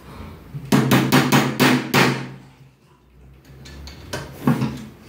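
Metal pliers knocking on a powder-coated steel chair tube: about six quick sharp strikes with a short ring, then two more near the end, tapping the tube so its bolt holes line up.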